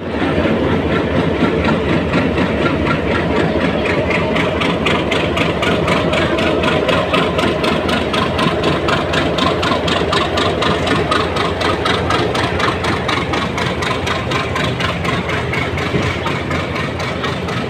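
Train engine running steadily, loud, with a rapid even pulsing and rattle.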